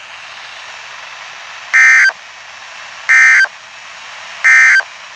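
Emergency Alert System SAME end-of-message data bursts: three short, harsh two-tone digital screeches about 1.3 seconds apart over a steady radio hiss. They mark the end of the warning broadcast.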